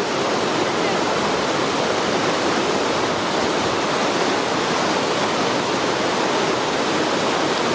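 Steady, loud rushing of a tall waterfall, close by, with its spray falling on the camera.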